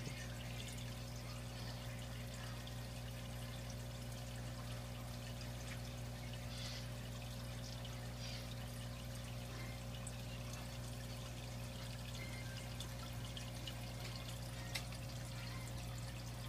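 Aquarium filter running: water trickling and splashing steadily over a constant low mechanical hum. One small tick about fifteen seconds in.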